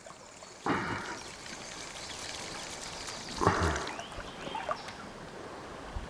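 A hooked green sunfish splashing at the water's surface as it is reeled in: short splashes about a second in and again about three and a half seconds in, over a low trickle of stream water.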